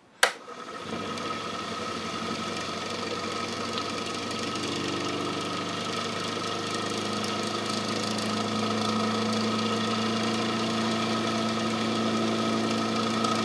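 A click, then the small electric motor of a bench motor-generator rig spinning its coil-wound rotor with a steady hum and whine. The sound gradually gets louder as the supply is turned up and the rotor comes up to speed.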